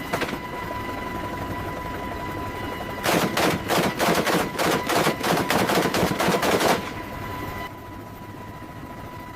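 A burst of rapid automatic gunfire, about four seconds long, starting about three seconds in. A steady engine hum with a whine runs underneath.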